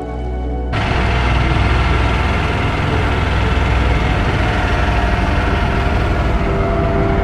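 Motor boat's engine running steadily with a loud rumble and rushing noise, cutting in abruptly under a second in as a stretch of background music ends.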